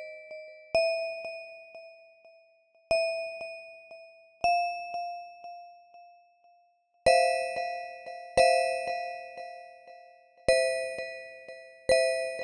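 Slow, spaced bell-like chimes: about seven single strikes, each note ringing out and fading before the next. The later strikes sound two notes together.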